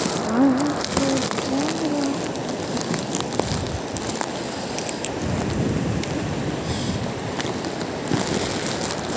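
Steady rushing beach ambience of wind and surf, with scattered small crackles.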